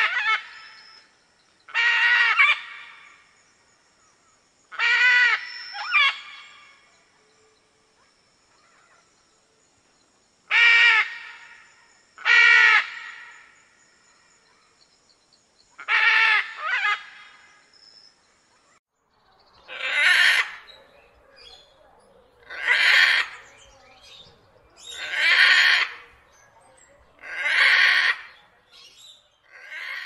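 Macaw squawking: loud, harsh calls a few seconds apart, some in quick pairs. Past the middle they become longer, rougher screeches repeating about every two and a half seconds.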